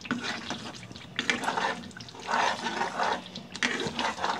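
A flat spatula stirring and scraping a thick, bubbling curry gravy around a kadai: irregular wet squelching swishes with short clicks of the spatula against the pan, loudest about halfway through. The gravy is stirred without a break to keep it from catching on the bottom.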